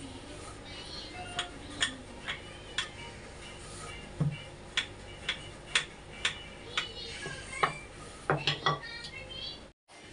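Wooden rolling pin knocking and clicking against a rolling board as roti dough is rolled out: a string of sharp, uneven clicks, about two a second.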